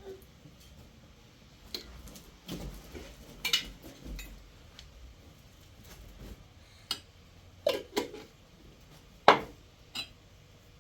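Scattered knocks and clinks of objects being handled, about a dozen, at irregular times; the loudest is a sharp knock about nine seconds in.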